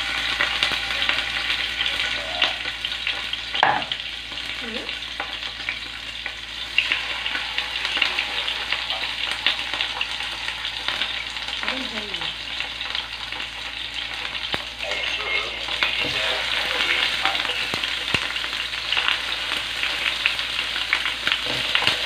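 Marinated chicken pieces sizzling and crackling in hot oil in a deep nonstick pan, a steady hiss with many small pops, as more pieces are laid in one after another. The chicken is being pan-fried only partway before it is baked.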